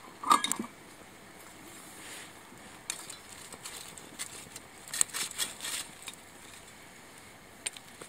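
Small stick fire burning in a stainless-steel SOTO Tetra ST-941 mini fire stand, crackling and snapping. There is a sharp clink just after the start, a burst of snaps about five seconds in, and a single click near the end.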